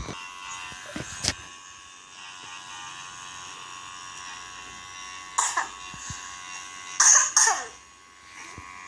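Portable nebulizer running with a steady high buzz while it turns Ventolin into mist. A child coughs briefly about a second in, again near five and a half seconds, and twice around seven seconds.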